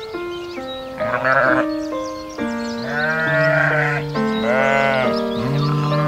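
A sheep bleats three times, wavering calls about a second, three seconds and five seconds in, over gentle background music.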